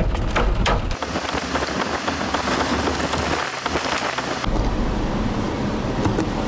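Hailstones striking the car in sharp separate hits for about the first second, then a dense, even hiss of heavy rain. About two seconds before the end it changes to a steadier low rumble of the car on the road.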